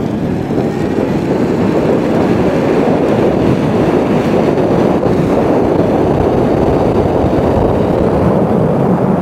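Loud, steady rush of wind and road noise on a camera riding an electric hub-motor Honda CT90 conversion near its top speed of about 41 mph. There is no engine sound.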